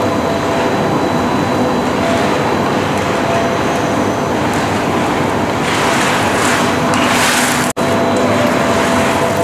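Steady machinery hum of an indoor ski hall, with several thin steady tones. About six to seven seconds in, a hissing swell of skis scraping across the snow, and just after it the sound cuts out for an instant.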